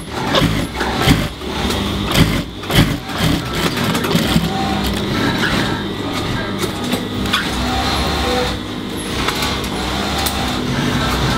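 Juki industrial sewing machine stitching knit fabric: a run of sharp clicks and knocks in the first few seconds, then a steady whirring hum as it sews continuously.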